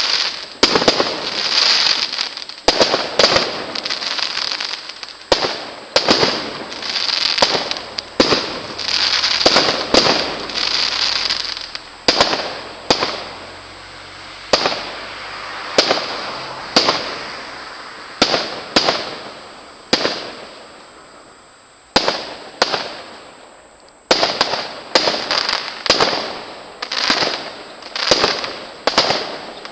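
Aerial firework shells bursting one after another, each sharp bang followed by a fading tail. The bangs come more sparsely past the middle, then in a quick run near the end.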